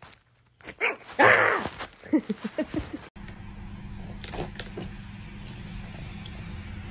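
A loud vocal cry, then a run of short voiced pulses. About three seconds in, these give way to the steady hum and trickle of an electric pet water fountain, with a few soft clicks as a cat drinks from it.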